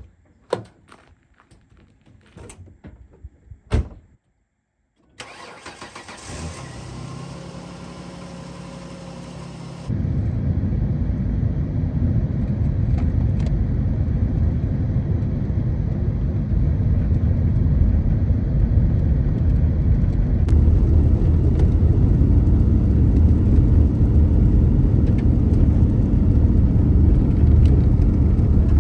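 A few knocks and clicks, then a pickup truck's engine starts and idles. About ten seconds in, it gives way to a loud, steady low rumble of engine and road noise as the truck drives.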